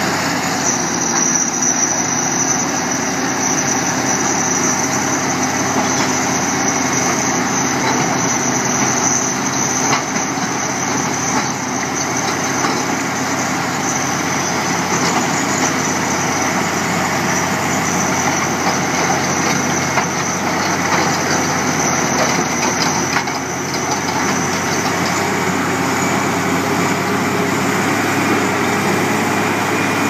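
Shantui SD32D crawler bulldozer running steadily as it pushes rock, its diesel engine under load. A thin high whine sits over the machine noise and fades out shortly before the end.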